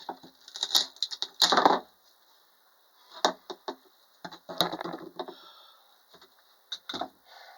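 Irregular knocks and clatter: a few short bursts and sharp clicks, a second or two apart.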